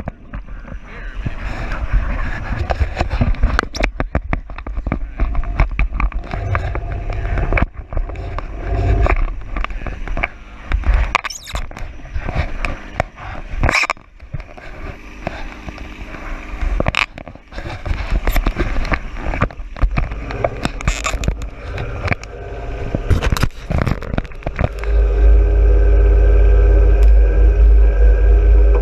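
John Deere 1023E compact tractor's diesel engine running, with scraping and knocking from the loader working snow; about three-quarters of the way through the engine becomes louder and steady.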